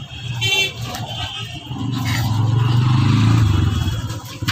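Street traffic: a motor vehicle's engine rumble swells to a peak about three seconds in and then fades as it passes.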